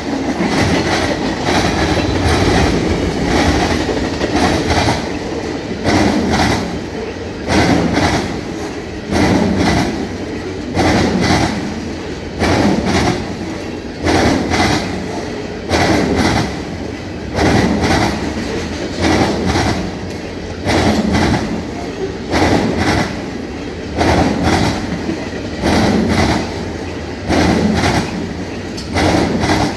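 Freight train wheels clattering over a jointed rail diamond crossing: groups of sharp banging strikes repeat about every two seconds as each railcar's wheelsets pass over the joints, over a continuous rolling rumble.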